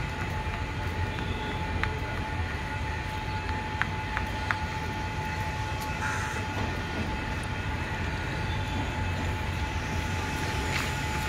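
Class S11 diesel multiple unit idling at the platform: a steady low engine hum with a constant thin whine over it and a few faint clicks.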